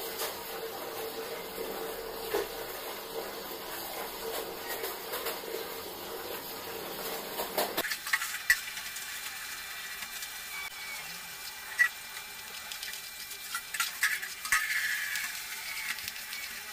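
Kitchen knife cutting cabbage, then tomato, on a cutting board. A steady hiss drops away suddenly about eight seconds in, and scattered sharp taps of the blade on the board follow.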